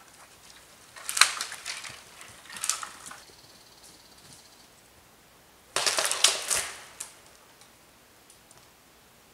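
Dry wood and brush crackling and snapping in three short bursts of rapid cracks, about a second in, near three seconds, and a longer one around six seconds in.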